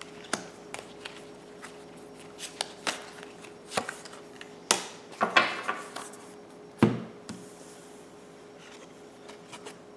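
Tarot cards being dealt face down onto a wooden tabletop: light taps and slides of card on wood, a brushing swish about five seconds in, and a firmer slap of a card landing about seven seconds in.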